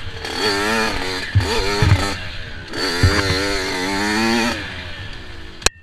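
Dirt bike engine revving hard under riding load, its pitch climbing and falling in two long surges, with a few thuds from the bike over bumps. A sharp click near the end.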